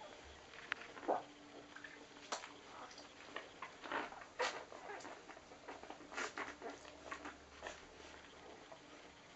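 Newborn rough collie puppies suckling at their mother: a run of irregular, quick wet smacks and clicks, mixed with a few brief faint squeaks.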